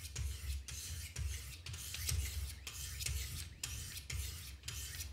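200-grit diamond stones of a Wicked Edge guided sharpener rasping along a steel knife edge in quick repeated strokes, about two a second. This is the coarse first grit stage of setting the bevel.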